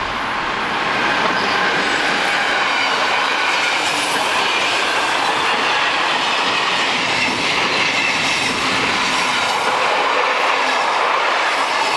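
Electric-hauled SBB passenger train passing close by, its wheels running loudly on the rails as the coaches go past. The sound grows about a second in and then holds steady.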